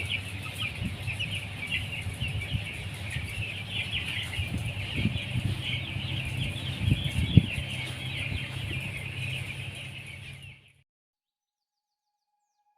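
A flock of 10-day-old broiler chicks peeping continuously, with a few low knocks in the middle, the sharpest about seven seconds in. The sound cuts off suddenly near the end.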